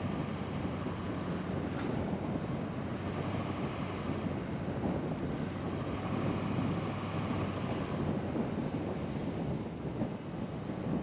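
A car driving along a paved road: a steady rumble of tyre and road noise, with wind on the microphone.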